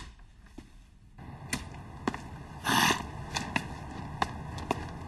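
Footsteps of people walking, first as scattered clicks on a hard floor, then against a light outdoor background noise that comes in about a second in. About two and a half seconds in there is a short whooshing noise.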